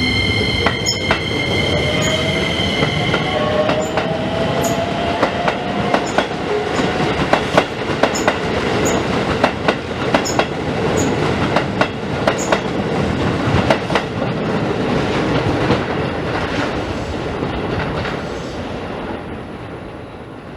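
Keisei 3000-series electric train (set 3015) running past: a high electric whine cuts off about three seconds in while a lower motor whine rises in pitch as it accelerates, then wheels clack over rail joints in quick sharp knocks. The sound fades away near the end as the train moves off.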